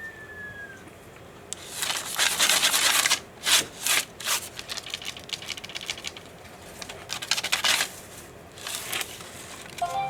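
Irregular bursts of scratching and rustling, loudest in the first half, with a few short scrapes later on.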